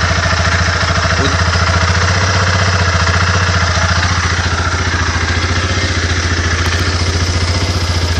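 SYM Wolf SB250Ni motorcycle's 250 cc fuel-injected, liquid-cooled engine idling steadily.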